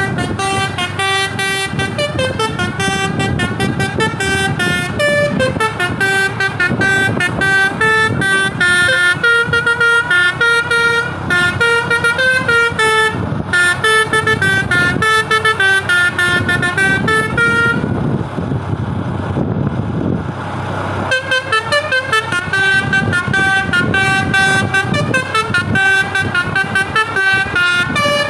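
Telolet Basuri V3 musical bus horn with top-mounted trumpets, playing a fast tune of stepped notes. About two-thirds of the way through the tune breaks off for a few seconds, leaving only a low rumbling noise, then starts again.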